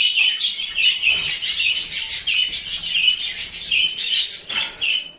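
A flock of budgerigars chattering continuously, many short, quick chirps and warbles overlapping.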